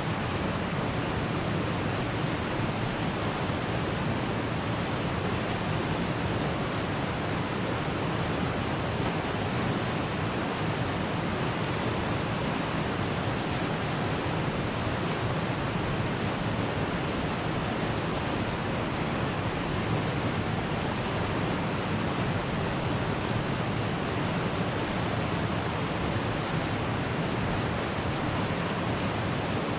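Steady rushing water, a stream or river current running without a break at an even level.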